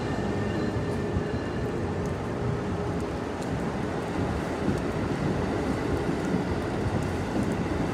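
Amtrak Acela Express trainset rolling past along the platform: a steady rumble of wheels on rail as the coaches go by.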